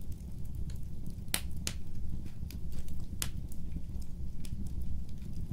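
A fire crackling: irregular sharp pops, a few of them loud, over a low steady rumble.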